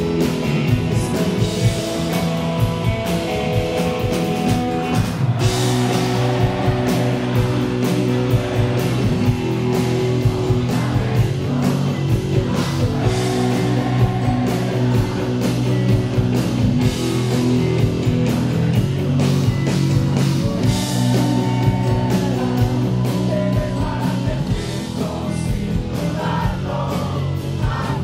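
Rock band playing live: electric guitars, bass, keyboards and drum kit, with a lead voice singing over them.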